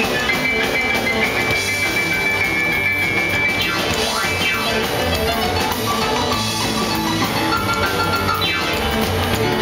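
Live rock and roll band: a piano part played hard on a stage keyboard, with a drum kit keeping the beat.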